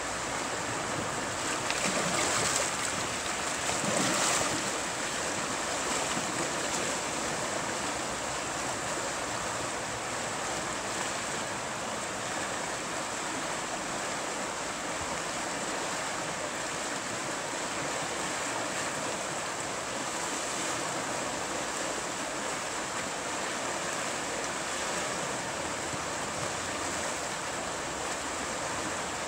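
Steady rush of river water pouring over a small rapid, with two brief louder surges about two and four seconds in.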